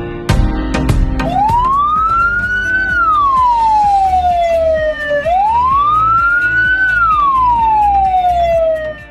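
Ambulance siren giving two slow wails, each rising quickly to its peak and then sliding down more slowly, over background music with a beat.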